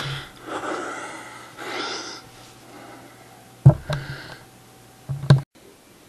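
Breathing and handling noise close to the microphone, with a sharp knock about three and a half seconds in and another about five seconds in. The vacuum cleaner is not running.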